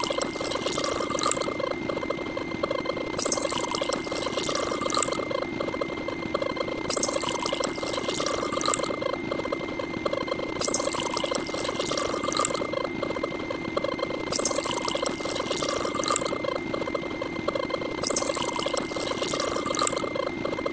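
A dense mix of many looping sound effects playing at once, with pouring water prominent. A steady high tone runs under it, and a high hiss switches on and off about every two seconds in an even cycle.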